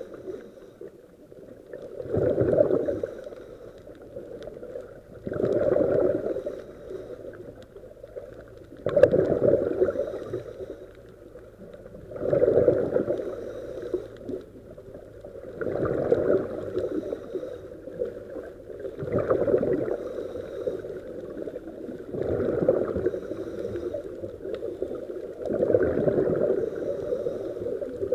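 A scuba diver's breathing through the regulator, heard underwater: a burst of exhaled bubbles about every three and a half seconds, each lasting a second or so, with a quieter hiss between breaths.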